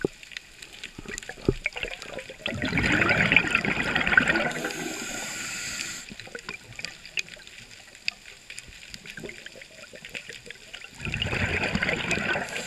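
Underwater bubbling from a diver's exhaled breath, in two gurgling bursts about eight seconds apart. Between them are faint scattered clicks and crackles.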